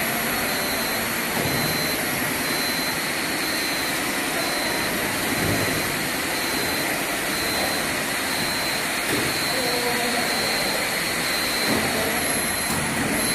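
Steady mechanical running noise from a steel coil tipper's drive as its cradle slowly tilts over.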